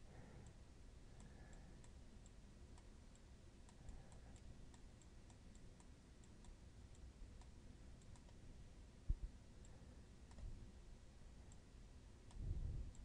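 Near silence with faint, scattered computer-mouse clicks. A single low thump comes about nine seconds in, and a brief low rumble near the end.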